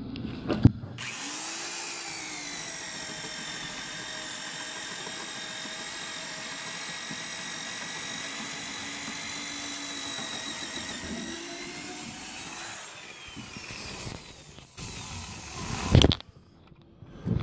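Electric drill with a long auger bit boring a hole through wooden framing: the motor whines steadily for about twelve seconds, its pitch sagging slightly under load, then stops. A sharp knock near the end.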